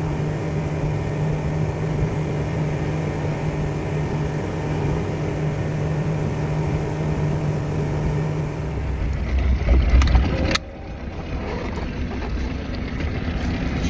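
Motorboat engine running steadily under way, with wind and water noise. Near the end it swells into a heavier low rumble, then cuts off abruptly to a quieter, even hum.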